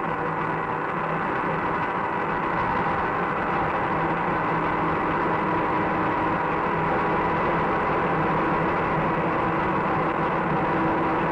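SNCF 2D2 electric locomotive heard from its cab while pulling away: a steady rush of running noise with a low hum and a few held tones. Its traction motors are still in series coupling as the starting resistances are cut out and speed rises.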